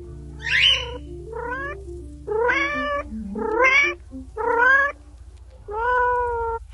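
Kitten meowing repeatedly: about six short calls, each rising and then falling in pitch, over soft background music.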